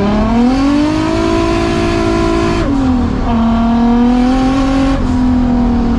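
Nissan 240SX drift car's turbocharged engine heard from inside the stripped, roll-caged cabin, pulling under acceleration: the revs climb, drop sharply at a gear change about two and a half seconds in, then pull up again, with a smaller dip near the end.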